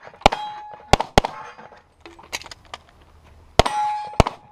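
Steel shooting targets clanging: about eight sharp metallic hits at uneven spacing, several leaving a short ringing tone at one pitch.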